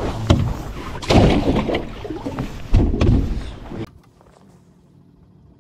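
Rustling and knocking close to the microphone as a fish is handled in the boat, with loud peaks about a second and about three seconds in; it cuts off suddenly about four seconds in, leaving a faint steady background.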